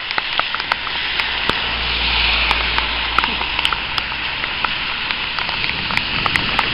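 Steady heavy rain, a hiss peppered with many sharp drop ticks. A low rumble runs through the middle few seconds.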